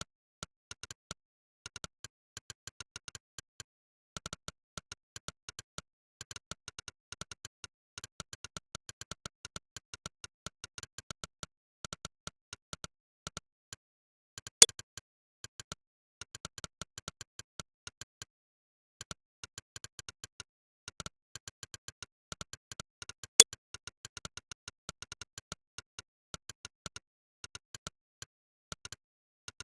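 Monkeytype's 'click' keypress sound effect, one short synthetic click per keystroke, firing rapidly at typing speed with brief pauses between bursts. Two clicks, about halfway through and again near the end, are much louder than the others.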